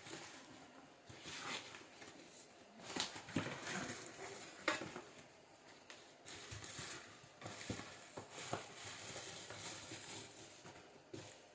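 Irregular clicks, knocks and rustles of a parcel and its packaging being handled, the loudest knocks coming about three to five seconds in.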